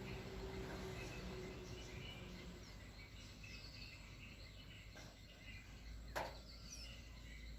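Faint outdoor ambience with a few short, high chirps from distant birds, and one sharp click about six seconds in.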